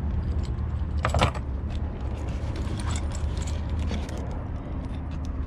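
Small tools and gear rattling and clicking as they are handled in a soft tool bag, with a louder clatter about a second in, over a steady low hum.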